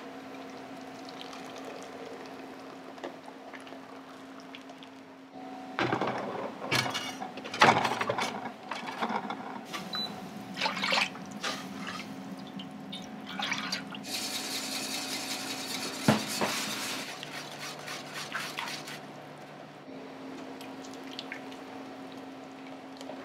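Kitchen work at a wok station: liquid sloshing and pouring from a carbon-steel wok, with clatter and knocks of the wok and steel pots over a steady low hum. About fourteen seconds in, a hissing rush of water lasts for about three seconds.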